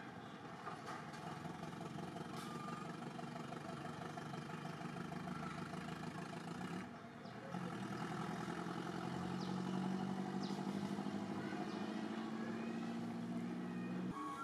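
An engine running steadily. It drops off briefly about seven seconds in, then picks up again.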